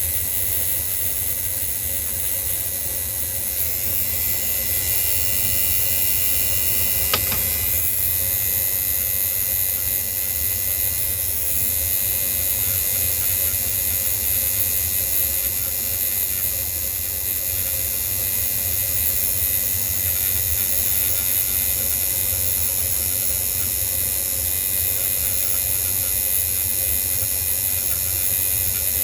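Steady mechanical hum with a high, even hiss, as of a small motor driving air; a single sharp click about seven seconds in.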